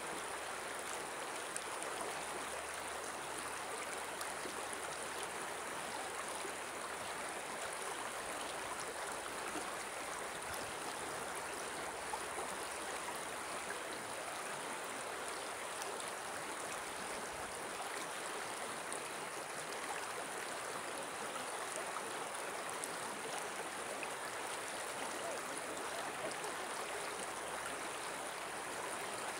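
Shallow river running steadily over a stony bed: an even rushing of water that does not change.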